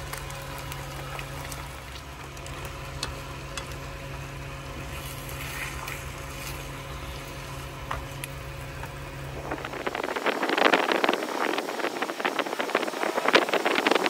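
A steady low mechanical hum. About ten seconds in it gives way to the crackling sizzle of eggs frying in a pan.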